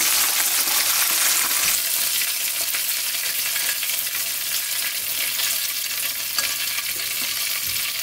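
Flour-and-starch-coated boneless chicken pieces frying in shallow hot oil in a nonstick pan: a steady hissing sizzle, near the end of the first fry with the burner just switched off. The sizzle eases a little about two seconds in, and a few faint clicks come later.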